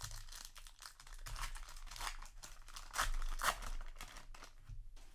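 Foil trading-card booster pack wrapper crinkling as it is handled and torn open, loudest a little past halfway.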